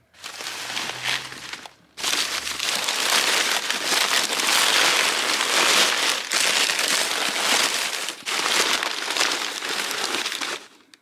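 Crumpled newspaper packing paper rustling and crinkling as a hand digs through a cardboard box. A short burst comes first, then continuous rustling from about two seconds in that stops just before the end.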